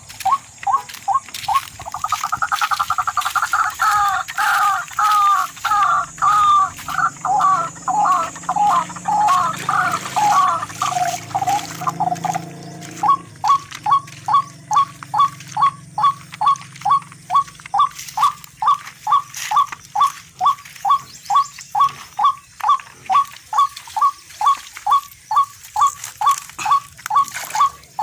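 Repeated calls of a tikling (rail). For about ten seconds it gives a run of longer, falling calls. Then it settles into a steady series of short, clipped notes, nearly three a second.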